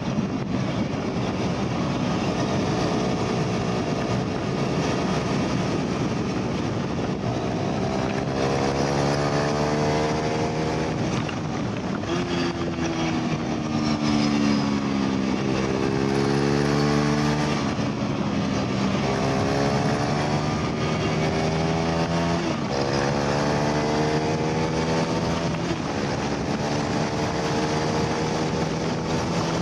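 KTM RC390's single-cylinder engine under hard acceleration on track: the pitch climbs through the revs and drops sharply at each upshift. Around the middle it falls away as the bike slows for a corner, then climbs again through the gears.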